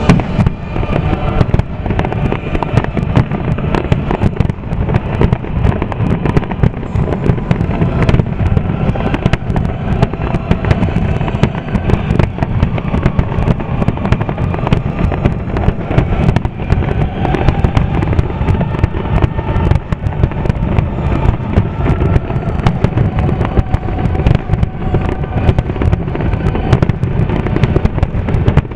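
Fireworks finale barrage: a continuous rapid run of aerial shell bursts and crackling bangs packed so closely they merge, over a heavy low rumble.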